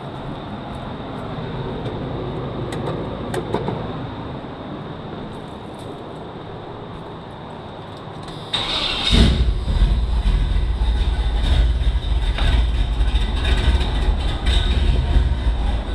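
1985 Chevy C10 pickup engine running steadily after a new starter and flywheel have been fitted, sounding pretty good. About halfway through it suddenly becomes louder and deeper, and stays that way.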